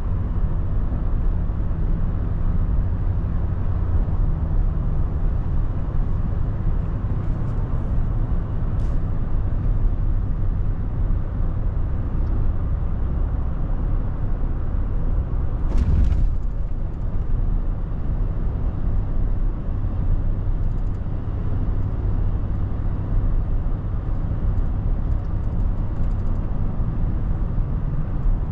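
Steady low road and engine rumble heard from inside the cabin of a moving car, with one brief hiss about 16 seconds in.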